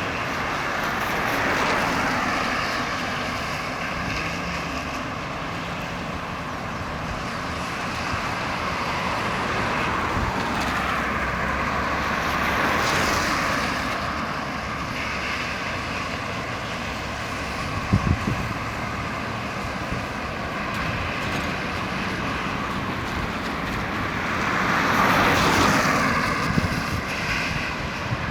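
Road traffic passing, with vehicles swelling and fading by one after another, loudest near the end, and a couple of short low knocks about two-thirds of the way through.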